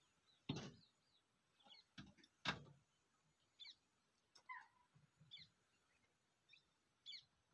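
Small birds chirping faintly in quiet forest, short scattered calls. Two short, louder sounds stand out, about half a second and two and a half seconds in.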